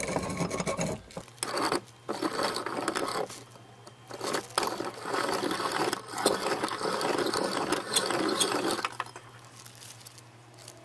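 Piston ring filer grinding the end of a piston ring in a run of rasping strokes with short pauses, stopping about nine seconds in. The ring gap is being opened because the ring was very tight.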